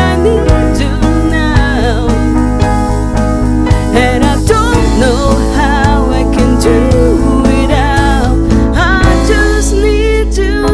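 A song: a singing voice over a band with guitar, a steady bass line and a regular beat.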